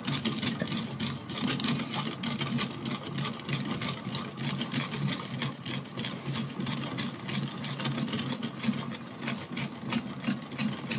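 A utensil stirring thick marinade in a bowl, scraping and clicking against the bowl several times a second, with undissolved sugar grating in the mixture. A steady low hum runs underneath.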